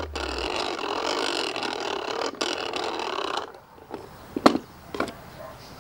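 A steady rushing noise that stops about three and a half seconds in, followed by two sharp knocks as a hand handles a manual coffee grinder on a wooden table.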